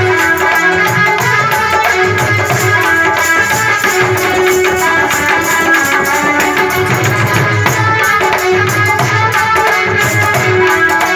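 Harmonium playing a melody over a steady hand-drum rhythm in an instrumental passage of Bundeli folk music, with no singing.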